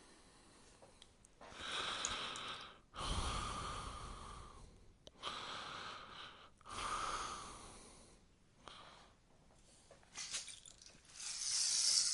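Rainstick tipped over and over: a series of hissing, rattling cascades of falling pellets, each swelling up suddenly and fading over one to two seconds, about six pours with short gaps between, the last near the end the loudest and brightest.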